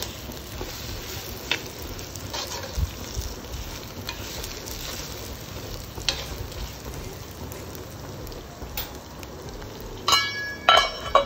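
Drumstick pieces, onion and tomato sizzling in oil in a clay pan: a steady frying hiss with scattered light clicks of stirring. Near the end, two loud ringing metal clanks as a steel lid is set on the pan.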